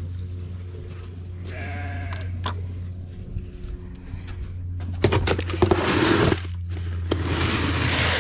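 A sheep bleats once, briefly, about two seconds in, over a steady low hum. From about five seconds in, dry feed rattles and scrapes as it is scooped into a bucket.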